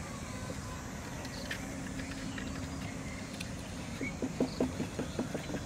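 Quick run of light taps and knocks from hands handling a PVC pipe, starting about four seconds in, over a steady low rumble.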